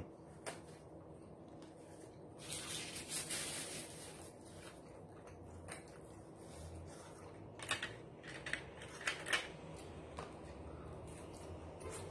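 A person eating and handling food: faint chewing and handling noises, with a short rustle about two and a half seconds in and a few sharp clicks around eight to nine seconds in.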